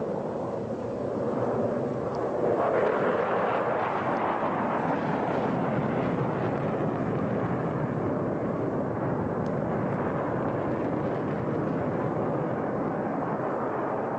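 Jet engine noise of a HAL Tejas fighter flying a display manoeuvre: a steady rushing roar that swells about two seconds in and then holds.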